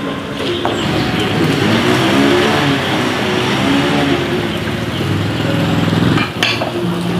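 A motor vehicle's engine running, its pitch rising and falling several times.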